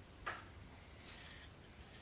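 A short scrape of sandpaper being handled on a workbench about a quarter second in, then faint rustling; otherwise very quiet.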